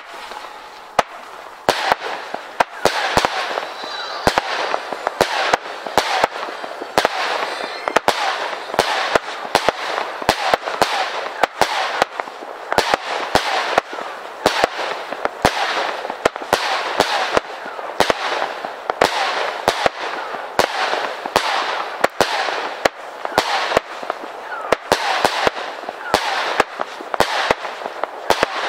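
Nico 'Tornado Fire' 50-shot firework battery firing: a rapid run of sharp launch thumps, one to two a second, over a steady hiss of burning effects.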